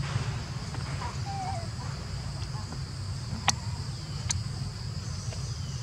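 Steady high-pitched insect drone over a low rumble, with a faint brief squeak a little past one second in and two sharp clicks, at about three and a half and just over four seconds in.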